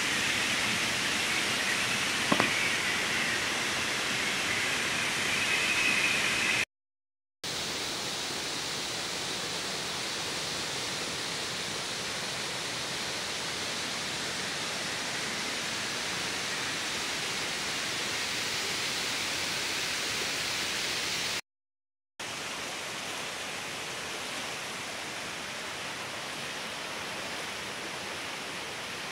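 Swollen river in flood: fast, muddy water rushing over rocks as a steady, even rush of noise. A short knock comes about two seconds in, and the sound cuts out briefly twice.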